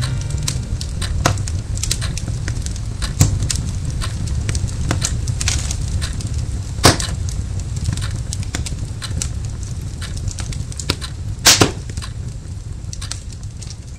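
Wood fire crackling in a fireplace: a steady low rumble with irregular snaps and a few louder pops, fading away near the end.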